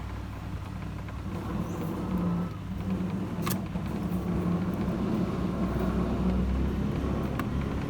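Steady low mechanical rumble, like an engine or traffic running in the background, growing a little louder in the second half, with two short sharp clicks, one about halfway through and one near the end.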